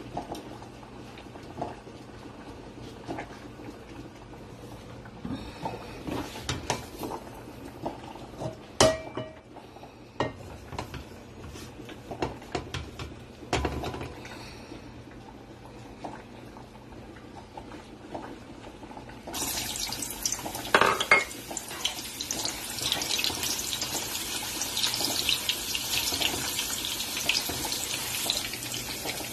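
Pots and utensils knocking on the stove top, then, about two-thirds of the way in, chopped meat landing in hot oil in a nonstick pan and starting a steady crackling sizzle. A spatula knocks in the pan as the meat is stirred.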